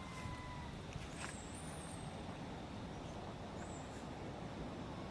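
Steady outdoor background rumble with no distinct nearby sound. A faint thin whistle sounds at the start, and a few faint high chirps come about a second and a half in and again near four seconds.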